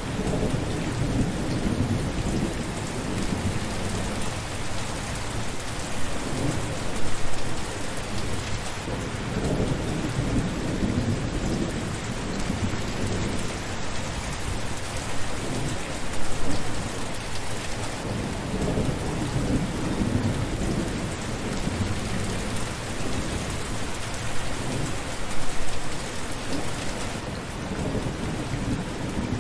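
Steady rain falling, a dense even hiss, with low rumbles of thunder rolling in and out every several seconds.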